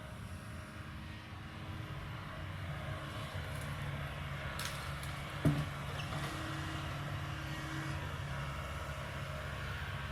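Kobelco 220 excavator's diesel engine running steadily, picking up slightly a couple of seconds in. A short hiss comes just before one sharp metallic clank about five and a half seconds in.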